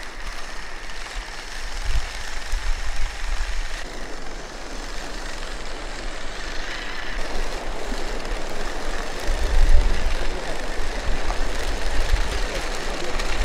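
Small electric motors of a radio-controlled, motorized LEGO Technic tracked tractor running, its plastic tracks clattering as it crawls over grass and stones. Irregular low rumbles of wind buffet the microphone, strongest about ten seconds in.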